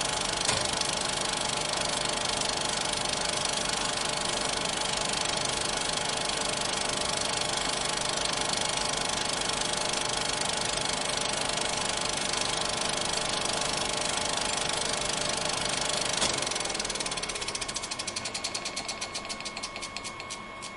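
Cinema film projector running with a steady mechanical clatter and hum. About three-quarters of the way through it slows down: the clatter drops in level and breaks into separate clicks that come further and further apart as the mechanism runs down, leaving a faint hum.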